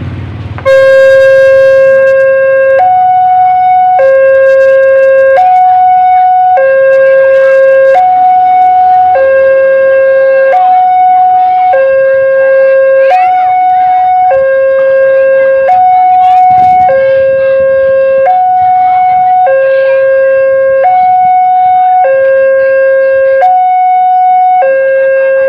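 Railway level-crossing alarm of the Dutch Alkmaar type: a loud electronic two-tone signal that starts suddenly about half a second in and alternates between a lower and a higher tone about every second and a half, warning that a train is coming.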